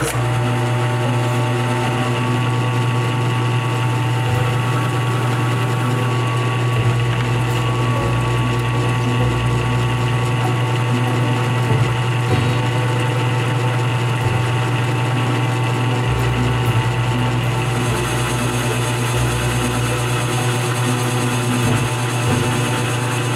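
Drill press motor running steadily, spinning a fabric buffing wheel, with a strong low hum. About three-quarters of the way in a brighter hiss joins as the steel axe head is pressed against the wheel.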